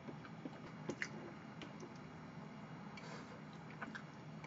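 Close-miked chewing of chocolate cake: faint wet mouth sounds with a few small clicks, the sharpest about a second in.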